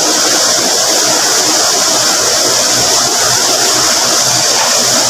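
Steady, loud machinery noise with a strong high hiss, running on without change.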